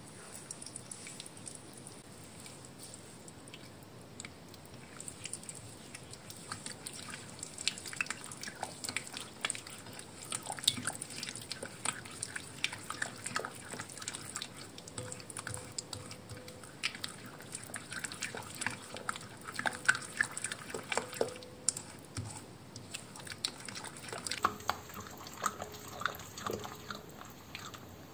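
Silicone spatula stirring a wet egg batter in a glass bowl: irregular squelching with light clicks and scrapes against the glass, getting busier about five seconds in.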